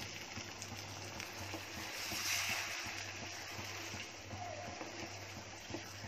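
Watery cashew curry simmering in a nonstick wok while a wooden spatula stirs it through, the gravy just thinned with water. A low steady hum runs underneath.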